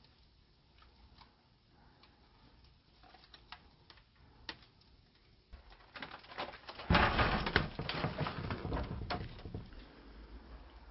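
A photograph being torn up by hand. A few faint clicks and rustles come first, then about six seconds in a burst of ripping and crackling that is loudest around seven seconds and dies away by about nine and a half.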